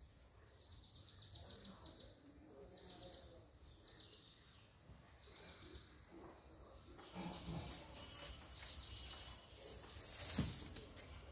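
A bird calling in short, rapid high-pitched trills, repeated every second or so. A single thump about ten seconds in is the loudest sound.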